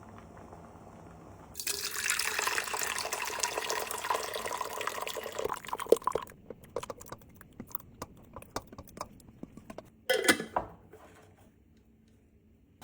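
Water running for about five seconds, starting and stopping abruptly, followed by scattered drips and one short splash near the end.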